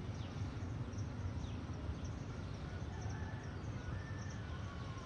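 A steady low rumble with birds chirping and calling over it, including a couple of held whistled notes near the end.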